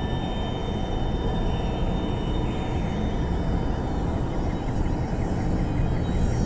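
Dark ambient drone music: a steady, dense rumbling noise texture with a few faint high held tones above it.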